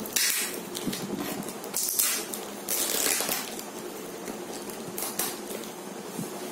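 Knife slitting the packing-tape seal of a cardboard box and the box being handled: several short scratchy rasps of blade, tape and cardboard, with rustling between them.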